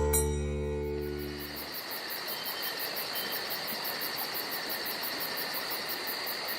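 A sustained sitar-like string note dies away over the first two seconds, leaving steady insect chirping in a fast, even rhythm of about four pulses a second over a constant high hiss.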